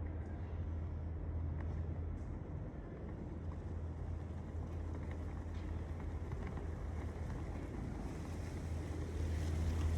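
Outdoor garden ambience: a steady low rumble of wind and distant background noise under a soft hiss, swelling slightly near the end.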